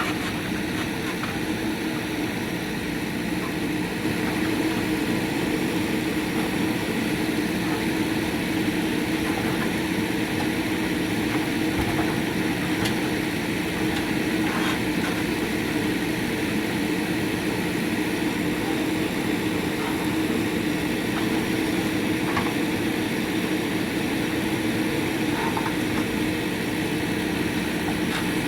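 JCB 3DX backhoe loader's diesel engine running steadily, an even engine hum, with a few faint knocks.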